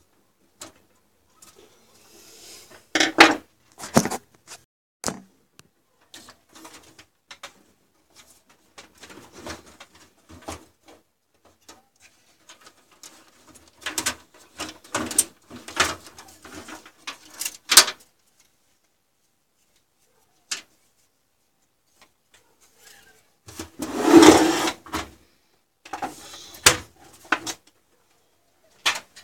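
Hands working inside a desktop PC case: clicks, knocks and rustling as power-supply cable connectors are pulled and the cable bundle is handled, with a longer, louder clatter and scrape late on as the motherboard is taken out.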